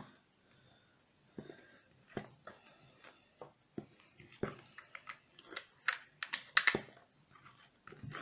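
Irregular clicks and soft taps of a utensil working in a bowl of shaving-foam slime mixture, at an uneven pace.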